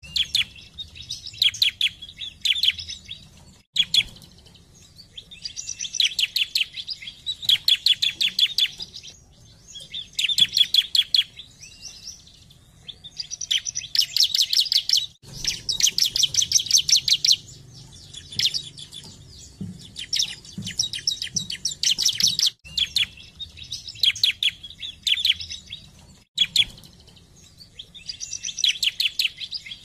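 Bar-winged prinia (ciblek) singing: a run of bursts of rapid, repeated high notes, each burst a second or two long, with short pauses between them.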